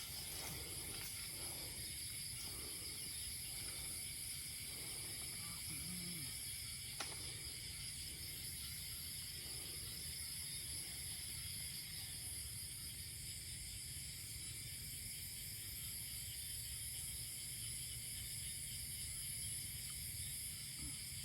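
Steady chorus of night insects, several high layered trills sounding at once without a break, over faint low rustling, with a single click about seven seconds in.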